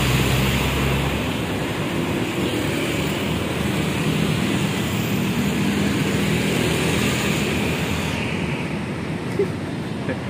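Road traffic passing close by, cars and a motorcycle, with a steady engine drone underneath.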